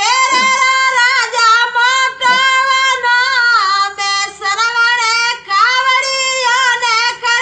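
Rajasthani Bhopa folk singer singing a devotional song solo: a high voice in long held notes with wavering ornaments, in phrases broken by short breaths.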